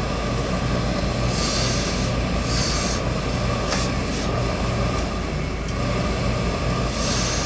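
Hose-fed tailor's steam iron sliding and rubbing over suit fabric, with short hisses of steam about a second in, near three seconds and near the end, over a steady low hum.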